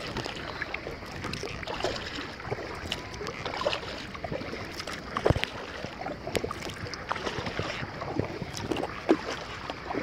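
Paddle strokes and water lapping around a stand-up paddleboard on calm sea: irregular small splashes and trickles.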